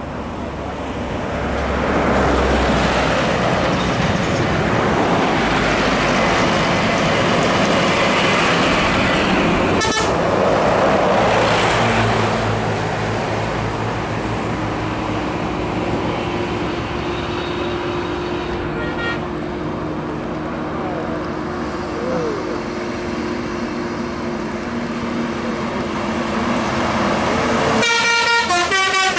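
Intercity buses and trucks passing close at speed: a loud rush of engine and tyre noise that swells and fades. Near the end, a bus sounds a multi-tone horn, its notes stepping rapidly up and down.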